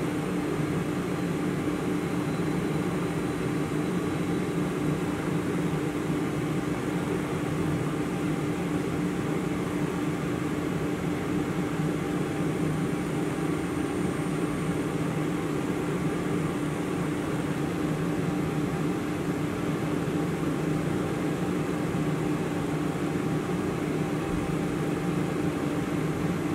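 Steady mechanical hum with a low drone that does not change: the Kitamura CNC milling machine idling, not cutting, with the blade held on its fixture.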